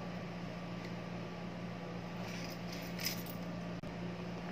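Steady low hum with several fixed tones, with a few faint clicks about two to three seconds in.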